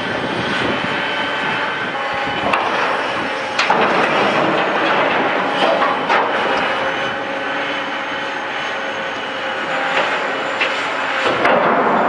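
Demolition shear on an excavator cutting a ship's steel: steady machine noise with faint high metallic tones, broken by several sharp cracks of metal giving way.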